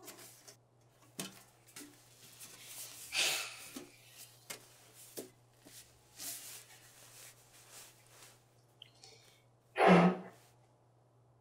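Soft breaths and faint rustling and clicking as a large brass horn is handled. A louder breath about three seconds in, and near the end a short, airy blow into the horn's mouthpiece with a low buzz but no clear note.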